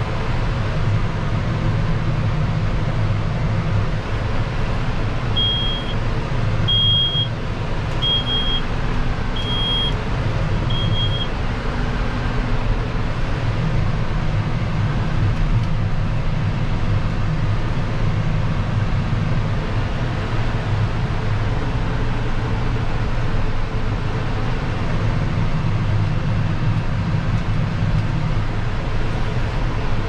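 Steady drone of a John Deere 6155R's six-cylinder diesel, heard from inside the cab while it pulls a plough. From about five seconds in, a high in-cab beeper sounds five times, roughly a second and a half apart.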